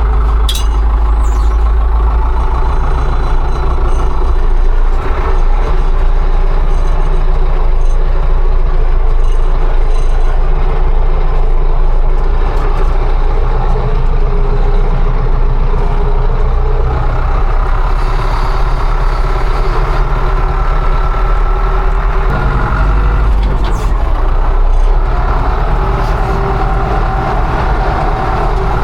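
Combine harvester's diesel engine running steadily under load, its engine note shifting about 22 seconds in.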